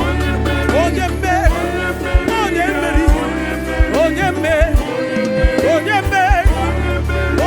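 Live gospel praise music: a voice singing a melodic line with vibrato over a band with sustained bass and a steady drum beat.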